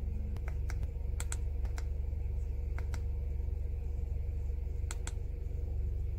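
Plastic buttons on a handheld OBD2 scan tool being pressed: about ten sharp clicks, several in quick pairs, as menu items are selected. Under them runs the steady low hum of the car's engine idling.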